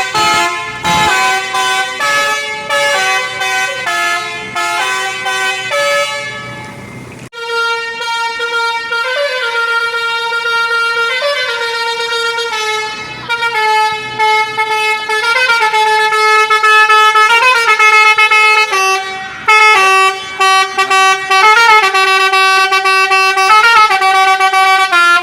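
A bus's Basuri V4 telolet multi-tone horn playing a melody. It starts with a run of quick, short notes separated by gaps, then from about seven seconds in plays longer held notes that step up and down in a tune.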